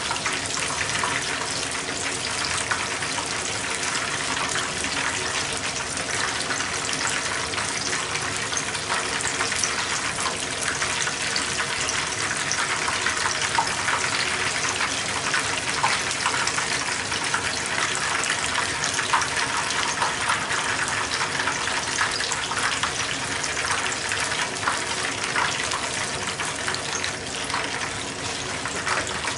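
Battered shrimp tempura frying in hot oil in a small frying pan: a steady, dense sizzle full of fine crackles.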